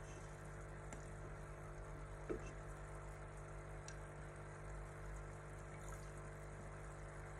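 Aquarium filter running: a steady low hum with faint water trickling, and a soft tap about two seconds in.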